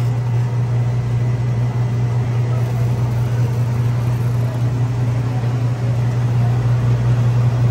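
Soft-serve ice cream machine running with a steady low hum while it dispenses soft serve into a cup.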